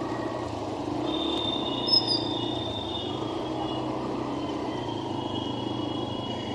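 Steady vehicle noise with birds chirping over it, one short sharp chirp about two seconds in.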